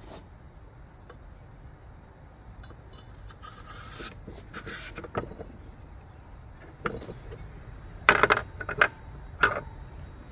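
Metal clinks and scrapes as a cylinder sleeve is dropped into the bore of a heated Kawasaki 900 two-stroke cylinder and aligned by hand. A few sharp metallic clanks near the end are the loudest sounds.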